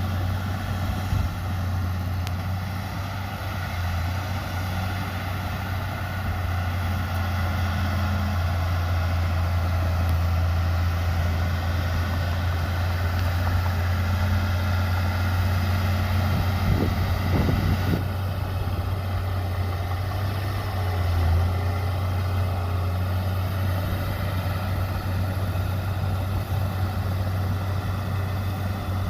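Heavy diesel earthmoving machinery running steadily under work: a deep, continuous engine hum from a bulldozer or dump truck.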